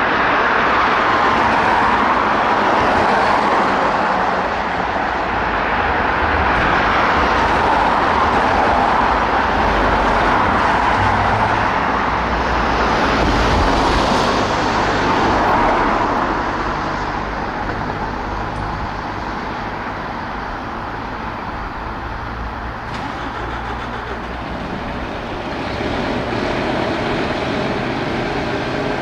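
Road traffic noise with heavy vehicle engines running, swelling and easing as vehicles pass, with no siren sounding.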